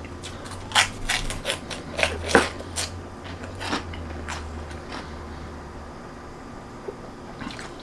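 Crunching pork rinds: a run of crisp, irregular crunches over the first few seconds, over a low hum that stops about six seconds in.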